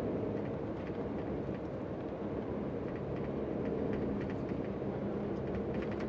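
Tour coach's engine and road noise heard inside the passenger cabin while driving at speed: a steady drone with a few faint ticks.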